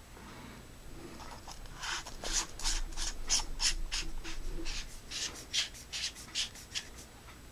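Fenix TK35 Ultimate Edition flashlight being screwed back together, its threads giving a run of short scraping rasps, about three a second, that start about two seconds in and stop shortly before the end.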